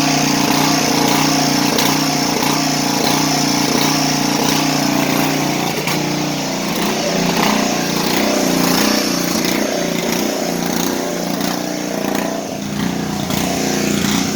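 Small gasoline engine of a 1980s Craftsman riding lawn tractor running at steady speed, left to run so it burns off its fuel for winter storage. About six seconds in, its speed starts to waver up and down.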